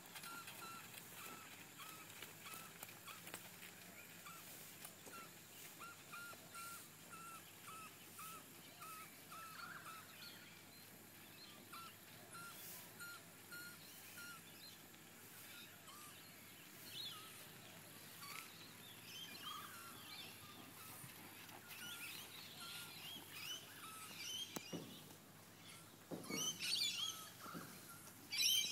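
Birds calling in surrounding trees. For the first ten seconds or so one bird repeats a short chirp about twice a second, then mixed higher birdsong follows. A few louder thumps come near the end.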